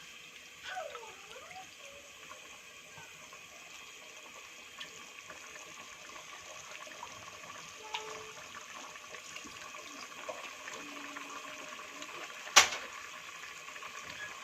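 Chicken karahi with yogurt cooking in the pan: a faint, steady sizzling and bubbling of liquid, growing slightly louder. One sharp knock comes near the end.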